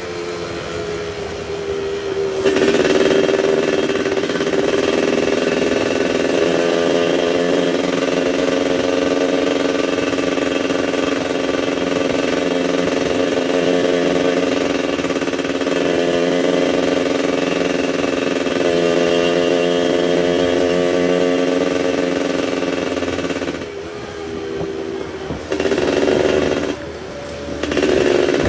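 Yamaha F1ZR's 110 cc single-cylinder two-stroke engine with its raspy exhaust, running at high, steady revs for about twenty seconds. Near the end the revs drop, followed by two short blips of the throttle.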